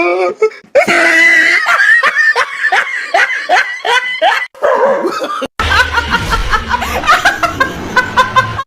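A person laughing hard in a long run of short bursts. About five and a half seconds in, the sound cuts briefly and the laughing goes on over a low steady hum.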